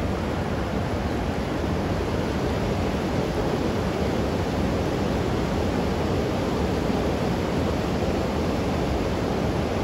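Steady rushing of a swollen river running full and fast.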